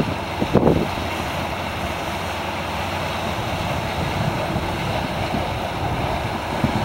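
Waves breaking and washing up a beach, with wind rumbling across the microphone and a brief gust about half a second in.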